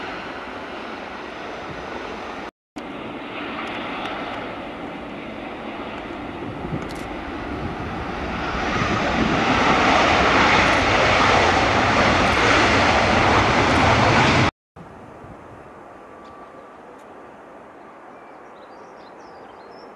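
Airliner engine noise in three spliced shots. First comes steady jet noise. Then an Airbus A320's jet engines on its landing roll grow to a loud roar, which cuts off abruptly. Last is the fainter, steady sound of an ATR 72 turboprop on final approach, with a few faint high chirps near the end.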